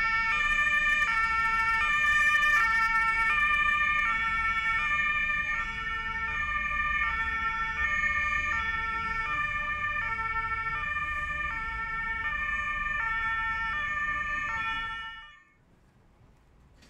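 Two-tone emergency-vehicle siren (German Martinshorn) alternating steadily between two pitches over a low rumble, stopping about fifteen seconds in.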